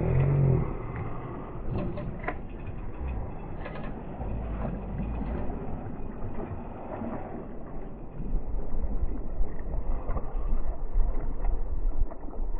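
Low wind rumble on the microphone, louder in the second half, with a few light splashes and clicks as a hooked sea bass thrashes at the surface.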